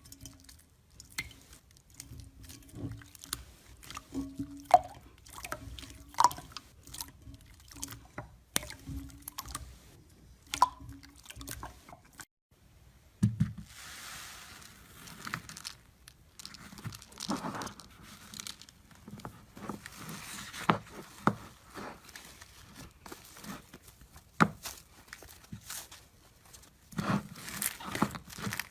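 Slime being handled: a run of sticky clicks, pops, crackles and squelches, broken by a short silence about twelve seconds in.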